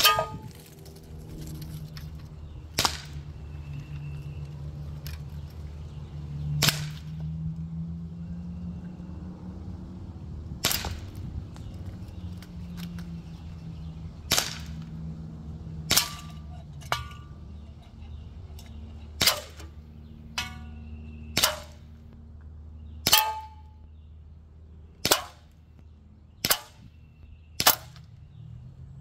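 Umarex Glock 17 Gen3 CO2 blowback BB pistol firing about fourteen single shots, one every one to four seconds. Several shots are followed by a short metallic ring as a BB hits a hanging metal can.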